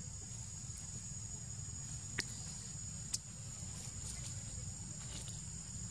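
Outdoor ambience: a steady high-pitched insect drone over a low rumble, with two sharp clicks about a second apart near the middle.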